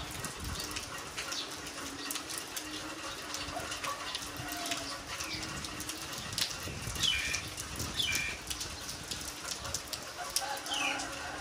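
Heavy rain falling steadily, with many sharp drops and splashes close by. A bird gives a few short falling chirps in the second half.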